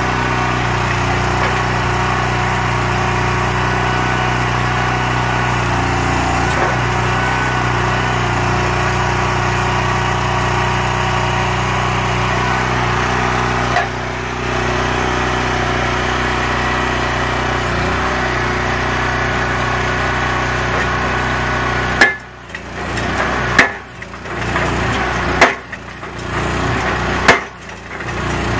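Small engine of a self-propelled guard rail post driver running steadily, powering the hydraulics. About three-quarters of the way in, the driver's hammer begins striking a wooden post, one sharp blow roughly every two seconds, four blows in all.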